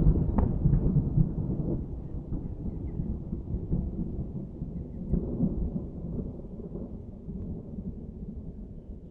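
Thunder rumbling, loudest at the start and dying away over several seconds, with a smaller swell of rumble about five seconds in.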